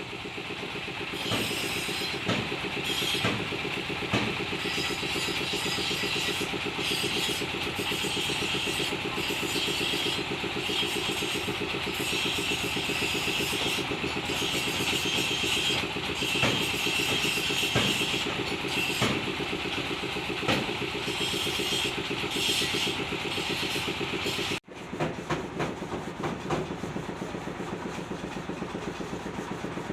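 An engine running steadily at idle, with a few sharp knocks over it. It drops out for an instant near the end and carries on.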